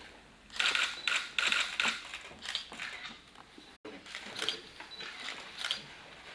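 Camera shutters clicking, several firing in quick bursts of rapid clicks, then scattered single clicks.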